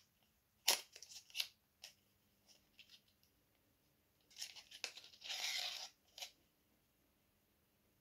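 Packaging being picked at and peeled off a small rolling pin: a few short crinkles and clicks, then a longer tearing, peeling sound about four to six seconds in.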